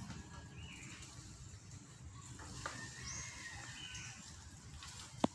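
Faint outdoor ambience with a low rumble and a few short, high chirping animal calls scattered through it, then one sharp click near the end.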